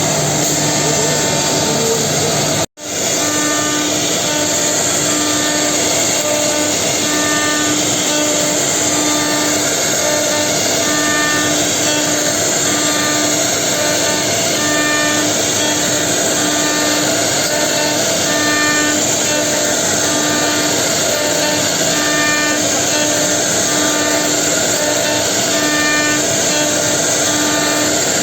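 Four-spindle CNC router milling hollows into wooden chair seats: a steady, loud running noise of the spindles and cutters, with a tone that pulses on and off in an even rhythm. The sound cuts out for a split second about three seconds in.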